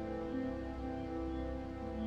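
Slow, soft ambient music of long held notes, a new note taking over about a third of a second in and again near the end.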